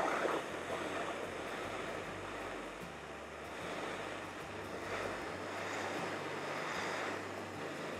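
Handheld Bernzomatic gas torch burning with a steady hiss, its flame held on the blade of pruning shears to sterilize them with heat.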